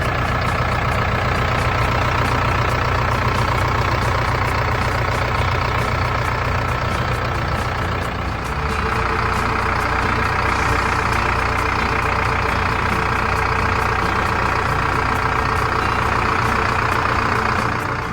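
Bull backhoe loader's diesel engine idling steadily. A higher whir above it gets louder about halfway through.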